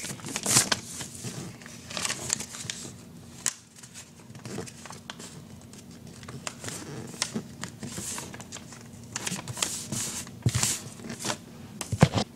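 A sheet of computer paper being folded and creased by hand into airplane wings, with irregular crisp rustles and crinkles.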